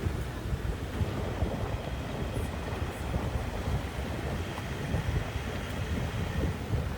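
A vehicle driving along a road: a steady low rumble with small uneven jolts.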